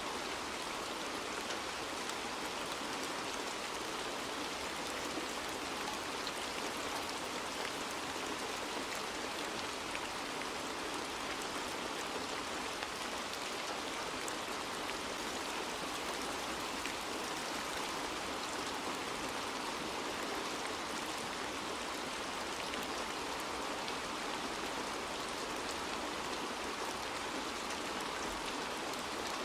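Steady rainfall: an even hiss of rain with fine scattered drop ticks, unchanging throughout.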